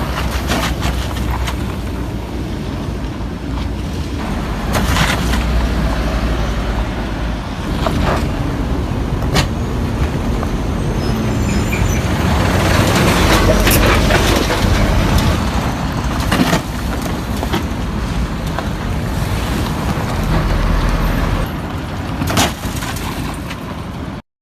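Car driving, with a steady road and engine rumble and several sharp knocks spread through it; the sound cuts off suddenly near the end.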